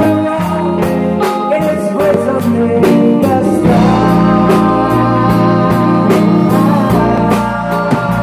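A live rock band playing: electric guitars, a violin-style electric bass and a drum kit, with a lead vocal.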